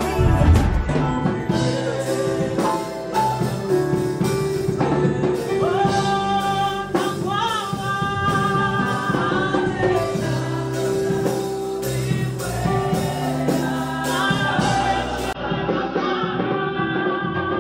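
Gospel music: voices singing with a choir over instrumental accompaniment and percussion.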